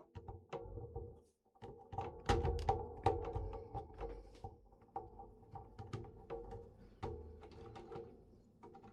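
Light plastic clicks and knocks of Lego minifigures and bricks being handled and set down, over a faint steady hum.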